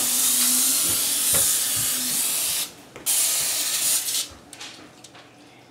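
Aerosol cooking-oil spray hissing from the can in a long spray. It stops briefly about two and a half seconds in, then gives a second, shorter burst of about a second, followed by a few light taps.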